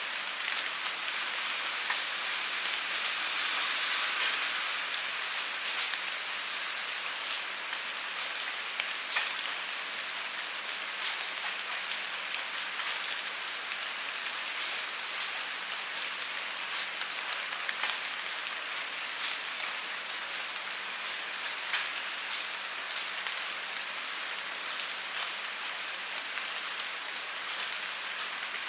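Steady rainfall: an even hiss of rain with scattered louder individual drops ticking on a surface.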